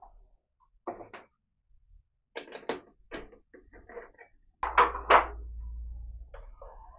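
Chuck key working the jaws of a Myford lathe's three-jaw chuck to free an aluminium workpiece: a series of short metallic clicks and knocks. About two thirds in, a low steady hum starts, with two louder knocks on top of it.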